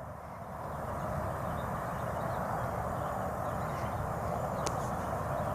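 Steady outdoor background noise with no clear tone in it, and a single faint click near the end.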